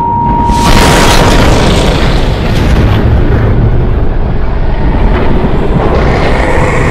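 A steady high tone cuts off as a loud explosion blast hits, about a second in. The blast fades into a long deep rumble.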